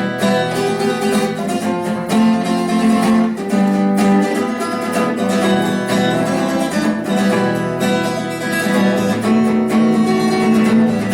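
Acoustic guitar strumming steadily, playing the guitar part of a Russian bard song (авторская песня).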